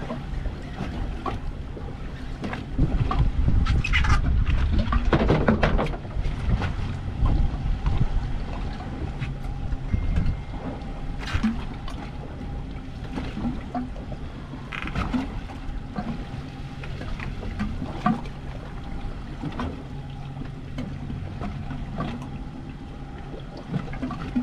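Wind and water noise on a boat drifting at sea, under a steady low hum. The rush grows louder for a few seconds near the start.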